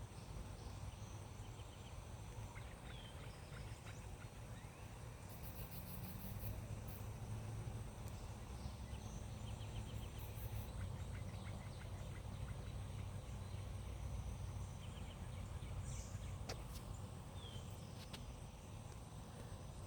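Faint calls of an unidentified bird: short, rapid rattling trills that come and go, and a couple of brief chirps, over a steady low rumble.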